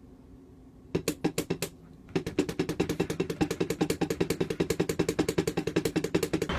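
Drumsticks striking a drum pad: a short burst of hits about a second in, a brief pause, then a fast, even run of strokes, roughly ten a second, from about two seconds in.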